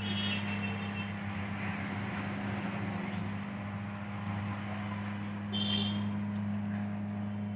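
Pet birds give two short, high chirps, one at the very start and one about five and a half seconds in, over a steady low hum and background noise.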